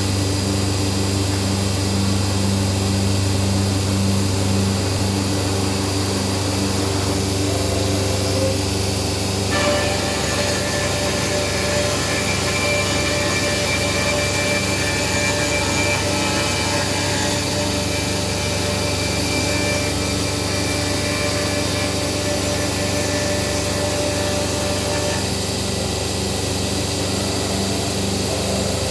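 Morbidelli Author 430 CNC woodworking machining centre running and machining wood, a steady loud machine noise over a constant hum. About ten seconds in, higher whines join; they drop away near the end.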